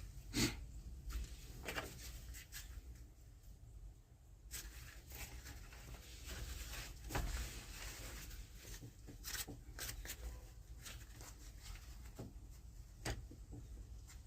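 Faint handling sounds of work on a loader joystick cable: scattered light clicks, taps and rubbing of parts and hands, a few a second at most, with the loudest knocks about half a second in and about seven seconds in.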